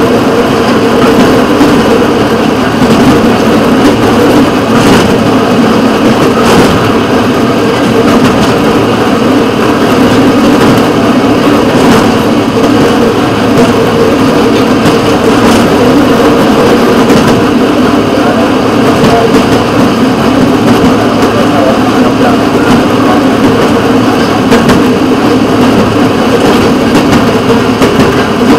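Engine of the rail vehicle running steadily as it travels along the track, with a few sharp clicks now and then.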